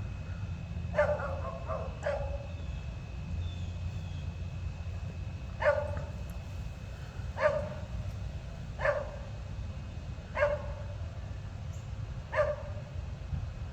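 A dog barking: single barks at irregular intervals of one to three seconds, about seven in all, over a steady low hum.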